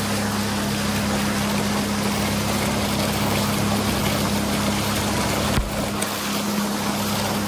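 Motorboat engine running steadily under way, a low even hum under the rush of wind and water past the hull. A single thump about five and a half seconds in.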